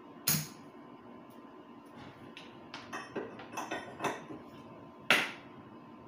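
Small tools and a circuit board being handled on a workbench: two sharp clicks, one just after the start and a louder one about five seconds in, with a run of lighter taps and clicks between them.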